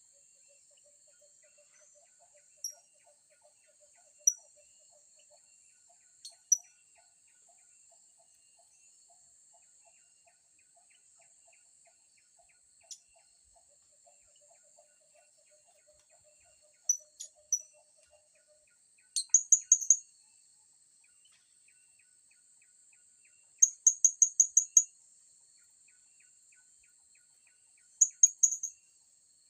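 Blue-crowned hanging parrot (serindit) giving thin, high, sharp chirps: a few single notes, then three quick runs of five or six notes in the second half. A steady high insect drone runs underneath.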